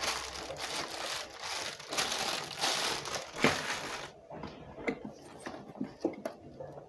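A clear plastic packaging bag crinkling and rustling steadily as it is handled for about four seconds. After that, quieter scattered taps and rustles come from hands working in the cardboard box.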